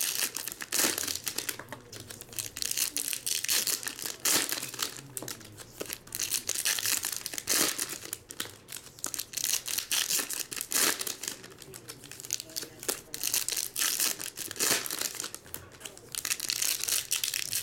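Foil trading-card pack wrappers being torn open and crinkled by hand, in irregular bursts of crinkling.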